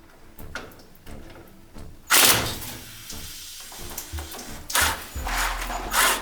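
Knocks and scraping from tools and metal fittings being worked while the nuts holding the old washing-machine valve are loosened, with background music. The loudest burst is about two seconds in, and a cluster of shorter ones comes near the end.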